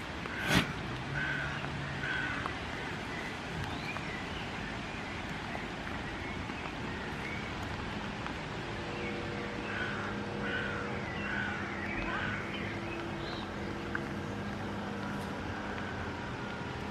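Outdoor background hiss with scattered short bird-like chirps and one sharp knock about half a second in. From about halfway a low, steady engine hum comes in and stays.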